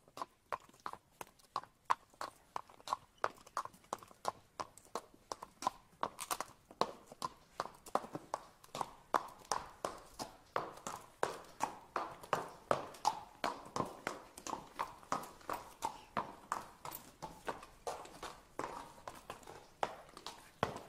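Horse hooves clip-clopping in a steady, even rhythm, about three hoof strikes a second.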